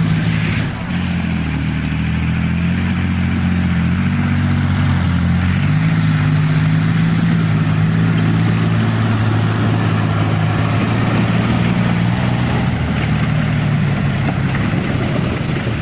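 BVP (BMP-family) tracked infantry fighting vehicle driving, its UTD-20 V6 diesel engine running under load. The engine note steps down about a second in and shifts again about six seconds in as the vehicle changes speed.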